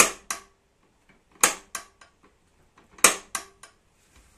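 Metal door of a PVC-pipe animal trap swinging on its axle and striking shut, three times. Each strike is a sharp metallic clank followed about a third of a second later by a smaller rebound clank, with a brief ring.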